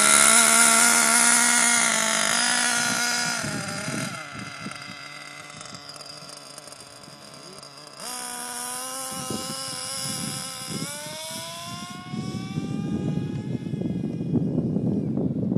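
Small nitro glow engine of a radio-controlled buggy running at high revs. It is loud at first, then drops in pitch and fades about three to four seconds in. About eight seconds in it is heard again and rises in pitch as it revs up, and a low rushing noise takes over in the last few seconds.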